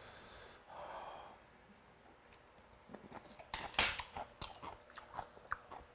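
A breathy exhale at the start, then, from about three seconds in, a run of small clicks and clinks of a spoon and chopsticks against an earthenware bowl, with chewing of porridge.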